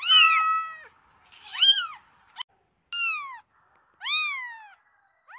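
Domestic cat meowing repeatedly: a string of about five meows, roughly one a second, each rising and then falling in pitch.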